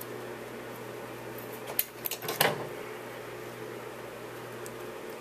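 Paper and crafting tools handled on a table: a few sharp taps and rustles bunched around two seconds in, over a steady low room hum.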